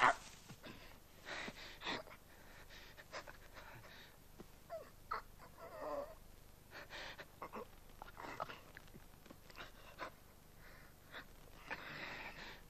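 A German shepherd dog growling and panting in short, scattered bursts while it pins a man down, with the man's strained breaths in between.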